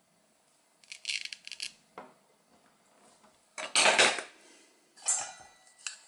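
Wooden toy food with a velcro join: a short crackly rip of the velcro pulling apart about a second in, then wooden pieces knocking and clattering on a wooden toy cutting board, the loudest knock about 4 s in.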